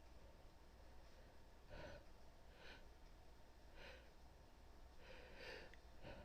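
A woman's faint breathing: four short breaths, starting about two seconds in and coming roughly a second apart.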